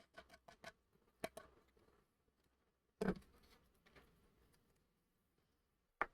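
Faint clicks and taps of diamond-painting work: small resin drills being picked up and set down on the canvas and tray. About three seconds in there is one louder knock with a brief rattle.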